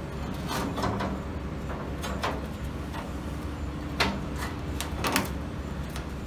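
A bent steel plate being set in place and shifted against a steel door frame on a metal workbench: a few short scrapes and clanks of metal on metal, the sharpest about four and five seconds in, over a steady low rumble.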